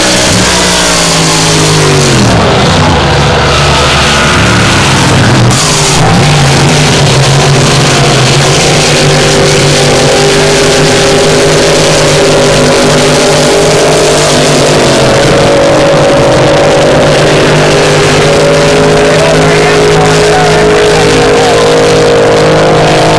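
Supercharged, alcohol-fuelled racing boat engines at full throttle. In the first few seconds boats pass close by, their pitch falling as each goes past, then a steady, high engine drone as they race on down the course.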